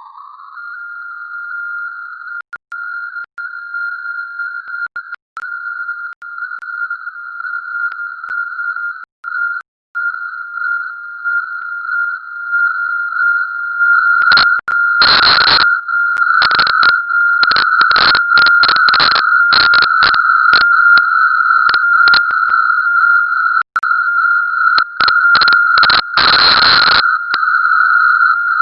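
Steady high-pitched electronic whistle with a fainter overtone, coming from the CwGet Morse code decoder's audio output, which the uploader takes for an audio loop or feedback. It glides up a little at first and grows louder, with a few brief dropouts. From about halfway, harsh bursts of noise break in irregularly over the tone.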